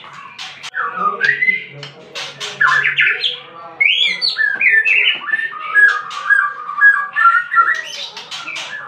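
A murai blorok, a white-rumped shama, singing a loud, varied song of gliding whistled phrases mixed with sharp clipped notes, then a long run of quick repeated notes in the middle.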